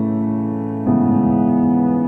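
Background music: sustained piano or electric-piano chords, with a new chord coming in about a second in.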